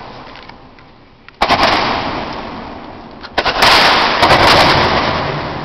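Roman candle fireworks firing inside a concrete bunker: two loud bangs, about a second and a half in and again about two seconds later, each followed by a long hissing echo that slowly dies away.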